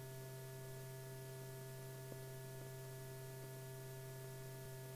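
Steady electrical hum with faint hiss on an old film soundtrack, and a faint click about two seconds in.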